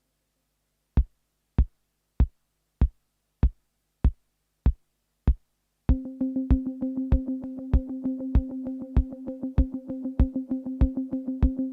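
Drum-machine kick from a sampled Elektron Digitakt beat, alone at first, hitting a little more than once a second and a half. About six seconds in, a sustained Yamaha PSR-36 keyboard chord enters through a Strymon Big Sky reverb on its Magneto setting, with quicker drum hits between the kicks.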